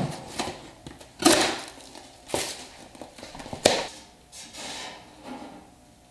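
Cardboard being handled and fitted against a truck's sheet-metal firewall to make a template: rustling and scraping, with three sharp knocks a little over a second apart.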